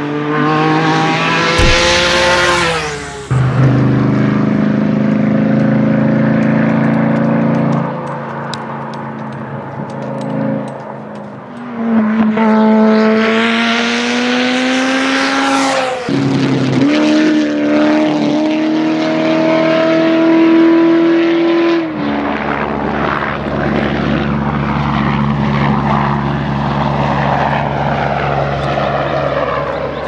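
Race car engines at full throttle as cars accelerate up and past one after another. The engine notes climb and fall through the gears, and the sound changes abruptly several times as one clip cuts to the next.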